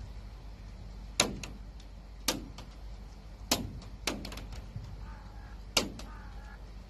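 A series of sharp knocks or bangs, five loud ones at uneven spacing about a second apart and a few softer ones, each with a short ringing tail, over a steady low rumble.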